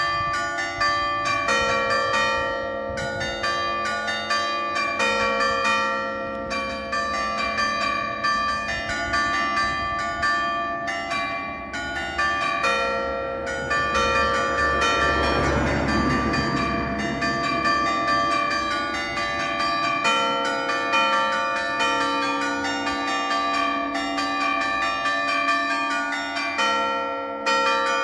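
Church bells in a brick bell tower played with hammers: a fast, continuous run of strikes on bells of several pitches forming a melody. A rushing noise swells and fades in the middle.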